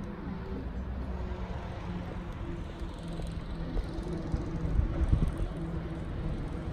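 A lorry and a motorhome driving along a road, heard as a steady engine hum over a low rumble that swells about five seconds in.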